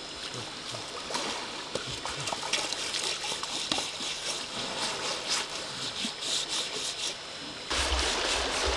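Water splashing and trickling as an elephant lying in shallow river water is scrubbed and washed down, with many small irregular splashes. A steady low rumble comes in near the end.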